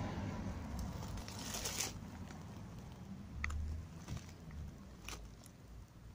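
Rustling and light crunching from brambles and gravel being disturbed while blackberries are picked and set down, with a brief rustle about one and a half seconds in and a few sharp clicks later, over a low rumble.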